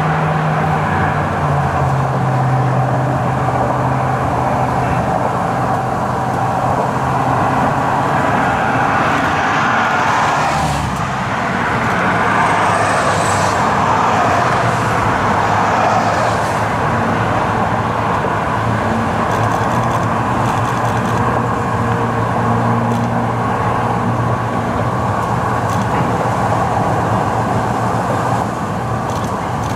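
Diesel freight train crossing a steel truss bridge, its locomotive engines a steady low hum, mixed with road traffic passing on the highway bridge close by; one vehicle swells past about ten to sixteen seconds in.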